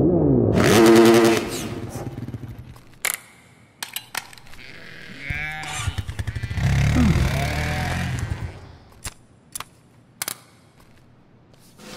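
Small engine sound effects revving up and down in pitch, twice, with sharp clicks and snaps in between.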